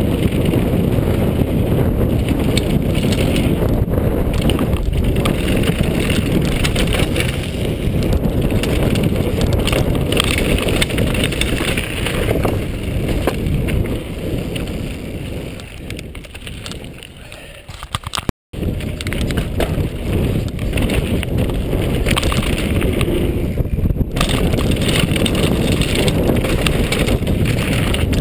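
Mountain bike riding fast downhill on a gravel and dirt trail: wind buffeting a chest-mounted action camera's microphone over tyres crunching on gravel and the bike rattling. About two-thirds through the noise eases for a few seconds, then cuts out for an instant before coming back at full level.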